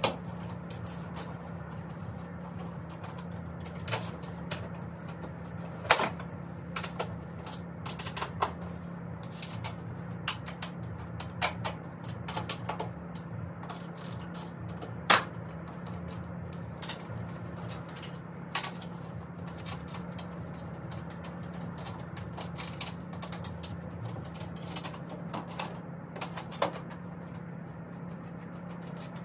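Irregular clicks, taps and knocks of hands working on parts in the engine bay of a Mercedes-AMG M156 V8, a few sharper knocks among them, over a steady low hum.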